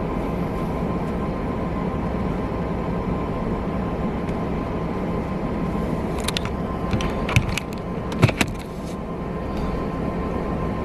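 Idling car with a steady low rumble, a faint steady tone under it, and a few sharp clicks a little past halfway through.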